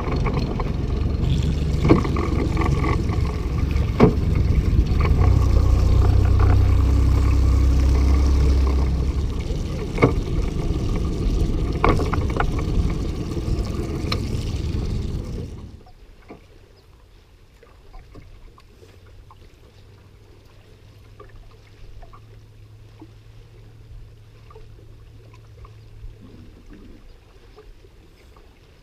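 Engine running with a loud low rumble and several sharp knocks as a bass boat is launched off its trailer. It cuts off suddenly about halfway through, leaving a faint low hum and small water ticks and lapping.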